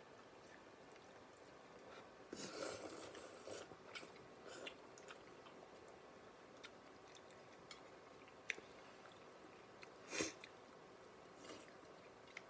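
A person chewing and slurping noodles, with a louder stretch of slurping about two and a half seconds in and a short loud burst about ten seconds in, and a few faint clicks between.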